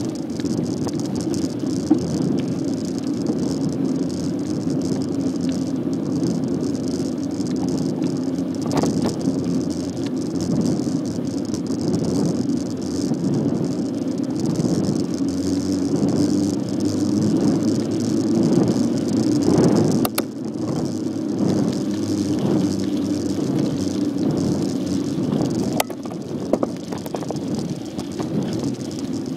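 Bicycle riding over a rough path: steady rolling and rattling from the bike, with a few sharp knocks over bumps.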